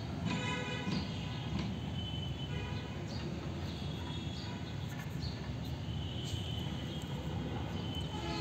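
Steady low background rumble, with faint, brief pitched tones over it twice in the first three seconds.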